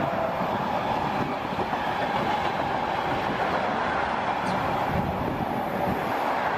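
Intermodal freight train wagons, flat cars carrying lorry trailers and containers, rolling past close by with a steady, continuous rolling noise.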